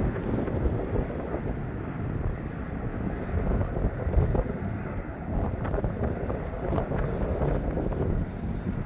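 Jet engines of an Airbus A300F4-605R freighter at takeoff power, a steady low rumble with scattered crackles, as the aircraft climbs away. Wind buffets the microphone.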